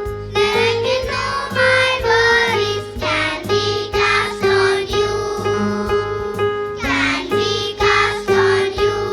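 A children's song: sung voices with wavering held notes over an instrumental backing.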